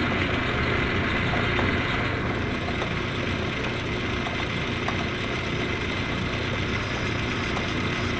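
Metal lathe running steadily with a thin high whine, while a cutoff tool cuts a notch into the spinning workpiece.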